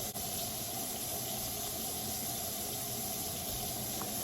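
Water tap running steadily into a sink, being left on to run hot.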